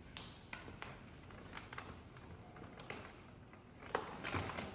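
Scattered light taps and soft footfalls on a tiled floor, then a knock about four seconds in followed by rustling as a cardboard box and the packaging inside it are rummaged through by hand.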